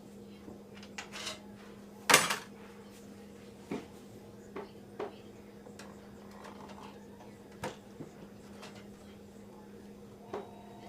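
Hard parts of a computer case and its screws being handled: scattered small clicks and knocks, with one loud clatter about two seconds in. A steady low hum runs underneath.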